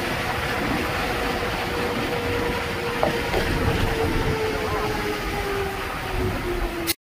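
Steady road and wind noise of a vehicle driving at speed, with a faint tone slowly falling in pitch, cutting off suddenly near the end.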